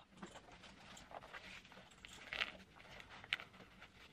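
Faint rustling of a Harbinger weightlifting belt being handled and adjusted, with two brief scratchy sounds in the second half.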